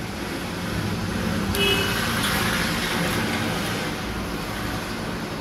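A road vehicle passing by: a broad rumble that swells and fades over a few seconds, with a short horn toot about a second and a half in.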